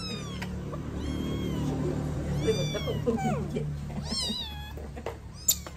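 Kitten mewing repeatedly in distress, about five high, falling cries, as a baby monkey grabs and pins it. A sharp knock near the end, over a low steady hum.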